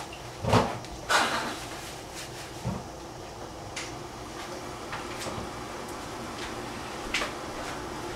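Kitchen handling noises: two sharp knocks in the first second or so, then a few fainter clicks spread through the rest, over a steady low room background.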